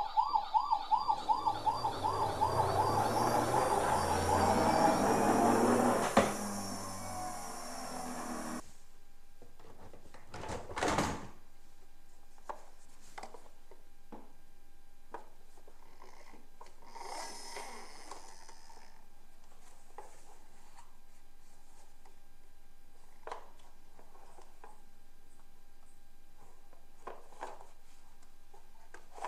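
Electronic siren of a toy fire truck, a fast repeating warble with a noisy sound-effect layer, which cuts off suddenly about eight seconds in. After that come a single thump and scattered light knocks and clatter of plastic toy vehicles being handled in a cardboard box.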